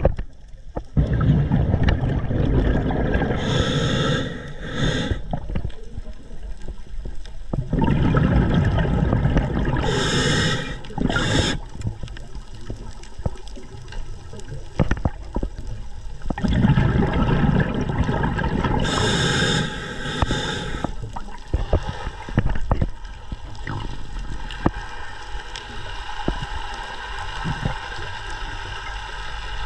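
Underwater sound through a diving camera: bubbling, gurgling water noise that swells and fades every several seconds, some surges with a brief higher hiss.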